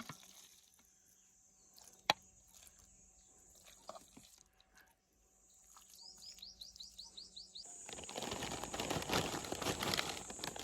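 Birds chirping faintly, with a quick run of rising chirps about seven seconds in; a rushing noise builds over the last three seconds.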